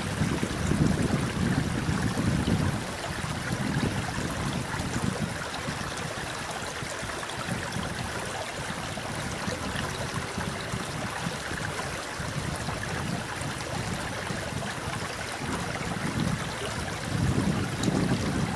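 Distant jet rumble of an Airbus A300-600ST Beluga on approach, a low noisy roar that swells and fades, louder again near the end. Wind buffets the microphone.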